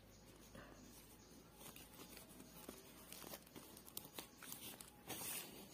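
Faint rustling and scratching of a needle and yarn being drawn through a woven plastic sack, with scattered small ticks and a louder rustle near the end.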